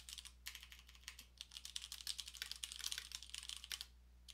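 Typing on a computer keyboard: quick runs of keystrokes, with a short pause near the end.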